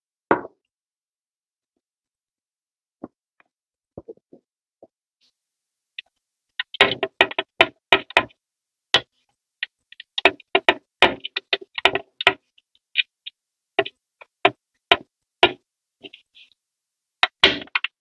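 Hard plastic parts knocking and clicking together as a small part is worked and pressed into the black plastic interior tub of a Tonka toy van. There is a single tap near the start and a few faint clicks, then a dense run of sharp knocks from about seven seconds in that thins out to spaced knocks and ends in a short cluster.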